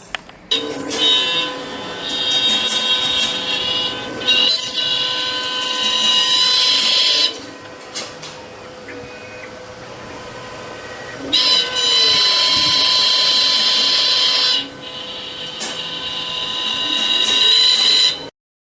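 Desktop five-axis CNC milling machine at work: the spindle runs with a steady whine while the cutter machines a part, in long spells of louder cutting with a quieter stretch between, and the axis motors glide up and down in pitch. It cuts off abruptly near the end.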